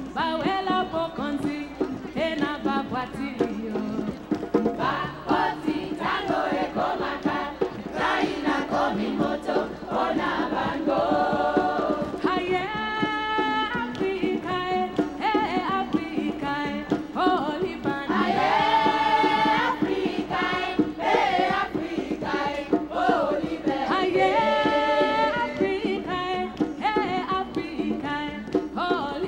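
A mixed choir of men and women singing together in harmony, in an African gospel-folk style.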